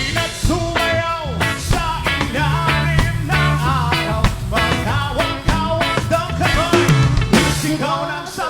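Live roots reggae band playing, with a bass line and drum kit keeping a steady groove under pitched instrument or vocal lines.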